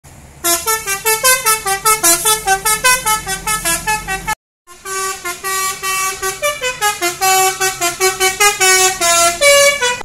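A tour bus's Basuri "telolet" multi-tone horn playing a fast tune of short notes, several a second, stepping up and down in pitch over a low engine rumble. The sound cuts out for a moment a little before halfway, then the horn carries on with another run of notes.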